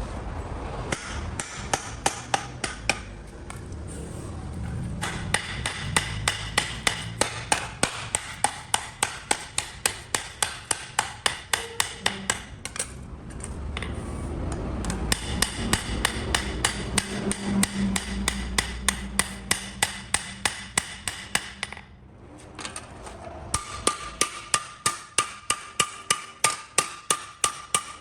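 Blacksmith's hammer striking metal on an anvil in fast, even blows of about three a second, each with a metallic ring. The blows come in runs broken by two short pauses.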